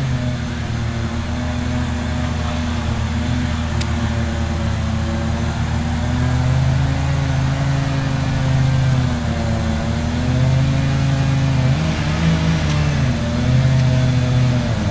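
An engine running steadily, its pitch drifting gently up and down.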